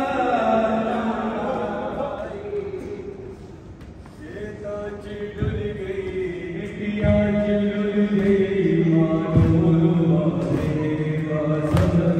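Men's voices chanting a noha, a Shia mourning lament, unaccompanied in long held notes. The chant dies down briefly, then comes back in, with dull chest-beating (matam) thumps on the beat about once a second.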